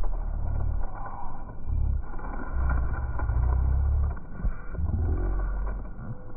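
Handling noise on a phone's microphone: uneven low rumbling bursts, each under about a second, as the phone is moved about and pressed against clothing.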